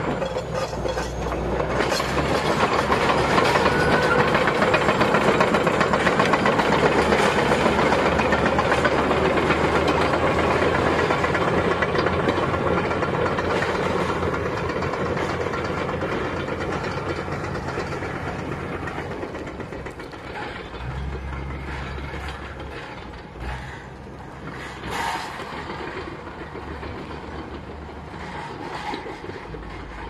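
Shantui SD22F crawler bulldozer's diesel engine running under load, its steel tracks clattering as it pushes snow and debris. It is loudest in the first ten seconds or so, then fades steadily as the machine moves away.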